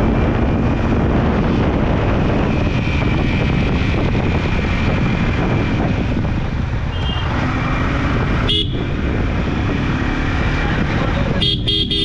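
Steady wind and road rumble on a motorcycle rider's microphone while riding in traffic. A vehicle horn beeps once about two-thirds of the way in, then several quick times near the end.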